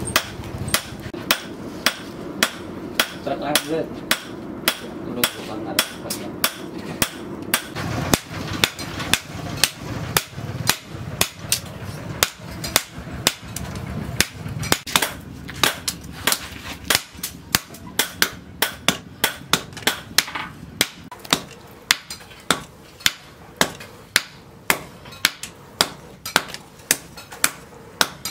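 Hand hammer striking a red-hot steel blade, cut from a tractor plough disc, on a steel post anvil: steady blows about two a second while the blade is forged out.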